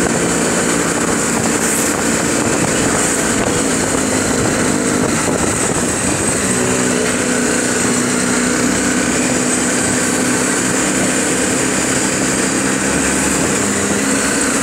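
Small motorcycle engine running steadily under way, heard from the handlebars, its pitch shifting slightly about five or six seconds in.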